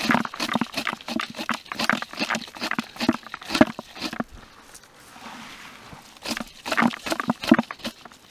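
Plastic cranberry scoop raking through bog moss and cranberry vines in quick rustling, scraping strokes, with berries pattering into a plastic bucket. There is a short quieter pause near the middle before the strokes resume.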